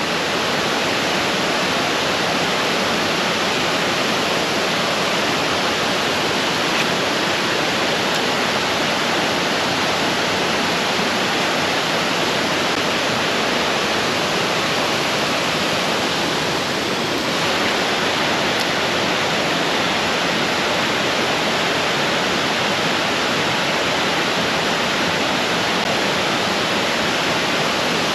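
Creek water rushing steadily over rocks, an even, unbroken rush of moving water.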